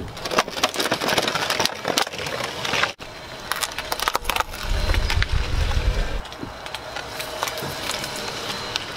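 Car tyre rolling onto a water bottle lying on gravel and crushing it, with a dense run of sharp cracks and crackles. After a break about three seconds in, more crunching and a low rumble as the tyre rolls over lollipops, then lighter grinding of the tyre on the gravel.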